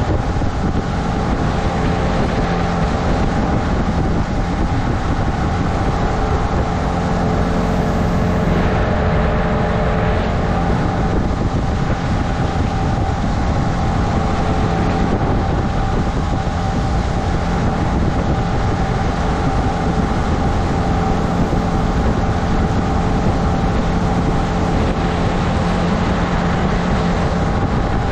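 A small motorboat's outboard motor runs at a steady cruising speed while the boat is under way, heard from on board. It makes an even, unchanging hum with several held tones.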